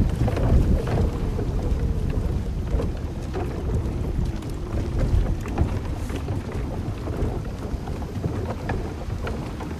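Wind rumbling hard on the microphone over water sloshing around a floating dock, with scattered small knocks from the dock.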